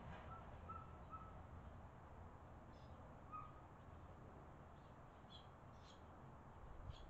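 Faint barn swallow chirps and twitters: a few short low chirps in the first second or so, then scattered sharper, higher chirps in the second half, over a low steady background rumble.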